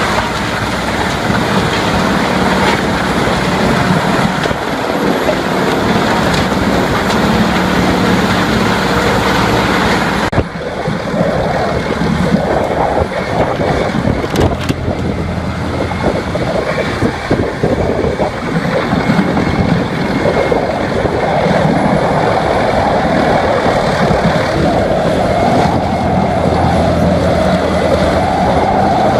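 Heavy machinery running loudly, with an abrupt change to a different machine sound about ten seconds in.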